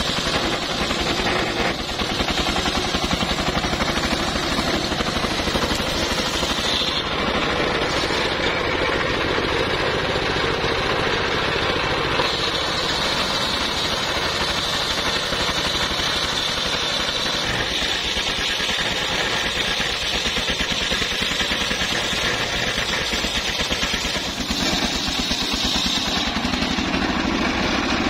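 Homemade circular sawmill ripping a teak log: the blade cuts steadily through the wood over the fast, even thumping of the single-cylinder diesel engine that drives it.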